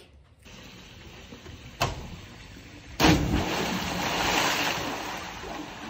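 A sharp knock, then about three seconds in a person jumps into a swimming pool: a loud splash followed by water churning and slapping, slowly dying down.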